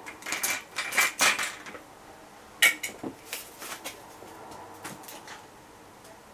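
The dish rack of a mini countertop dishwasher is handled and freed from its wire ties, with clattering clicks and rattles. There is one sharp knock about two and a half seconds in, then lighter clicks.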